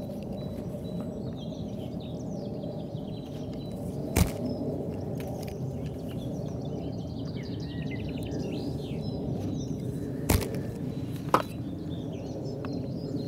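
Outdoor ambience with small birds chirping and twittering over a steady low rumble. Three sharp cracks stand out, one about a third of the way in and two close together later on.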